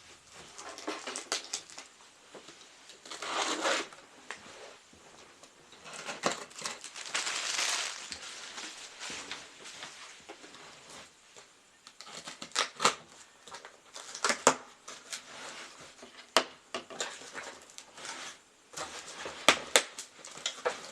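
Packaging being opened and handled: rustling and crumpling, followed in the second half by a run of sharp clicks and knocks as hard items are handled.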